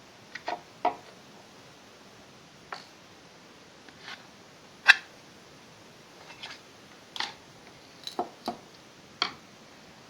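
Irregular small clicks and taps of camera parts and small tools being handled as a camera is taken apart: about a dozen sharp sounds, the loudest about halfway through.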